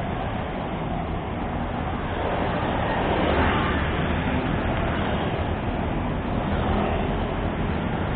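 Steady road traffic noise, swelling briefly as a vehicle passes about three seconds in.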